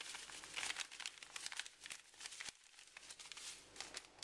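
A plastic spice packet of thyme crinkling as it is handled: a run of quick, light crackles in the first couple of seconds, then a few scattered ones.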